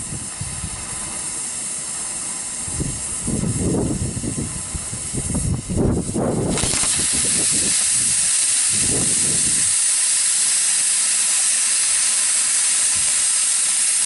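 Loud steady hiss that grows louder and brighter about six and a half seconds in, with uneven low rumbling under it for the first ten seconds.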